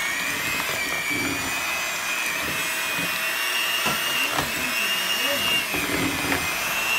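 Black+Decker electric hand mixer running steadily with a high whine, its beaters working through a thick flour dough.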